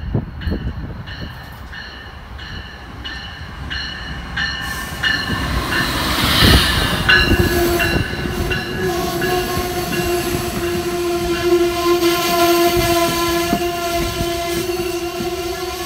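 Amtrak train hauled by an ACS-64 electric locomotive approaching and passing at speed, with wheel and rail noise building to its loudest as the locomotive goes by. Early on there is a rapid, regular ringing, and from about seven seconds in a long steady tone runs over the passing coaches.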